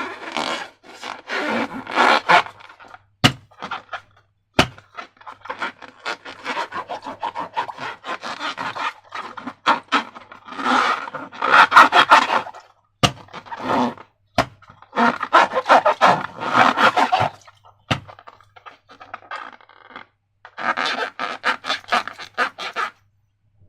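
Irregular bouts of scraping and rubbing as balloons and slime materials are handled, with about five sharp single clicks in between.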